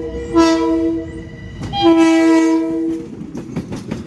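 LIRR M7 electric train sounding its multi-note horn as it passes: a blast about half a second in, then a longer blast near two seconds. Near the end, the horn stops and the wheels clack over the rail joints.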